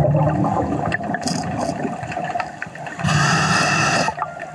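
A scuba diver breathing through a regulator underwater. A low bubbly rumble of exhaled air comes first, then about three seconds in a hissing inhale through the regulator lasts about a second.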